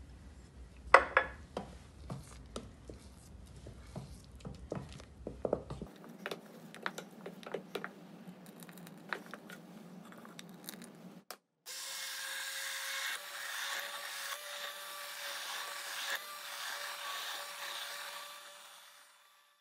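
A wooden spoon clicking and scraping in a stainless steel pot of thick sauce. About twelve seconds in, a hand blender starts running in the sauce with a steady whine, pureeing it, and fades out near the end.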